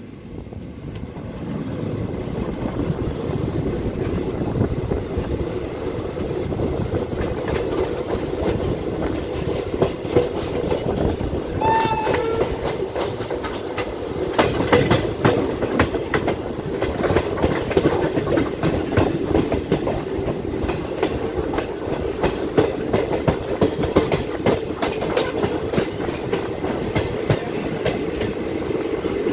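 Passenger express train running at speed, heard from an open coach door: steady wheel and rail rumble with clickety-clack over the joints, the clatter growing busier about halfway through. A brief horn note sounds about twelve seconds in.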